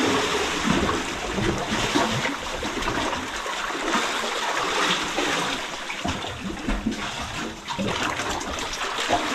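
Sea water splashing and lapping steadily around a small fishing boat.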